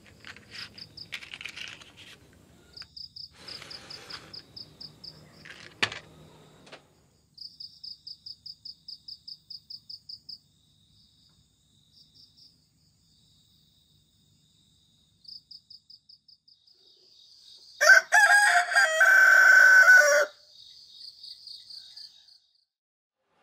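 A rooster crows once, loudly, about eighteen seconds in, lasting around two seconds. Before it, high, rapid chirps come in regular trains of several seconds, with a single sharp click about six seconds in.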